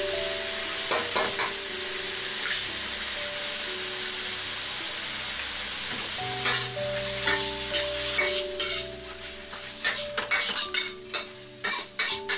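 Chicken, shrimp and carrot sizzling in hot oil in a wok, with a few light knocks about a second in as an egg is cracked into it. In the last few seconds a spatula stirs and scrapes the wok in quick strokes, about two or three a second.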